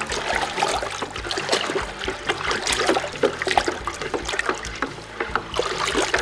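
Water in a plastic bucket sloshing and splashing in quick strokes as a wooden spoon stirs kosher salt into it, dissolving the salt to make a brine.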